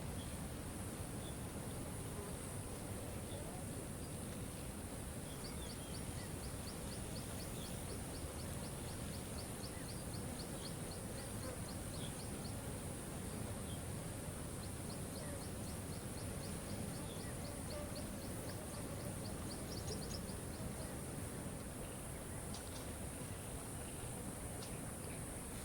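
Waterfall rushing steadily. Twice, a rapid high ticking trill of about five notes a second runs for roughly six seconds over it.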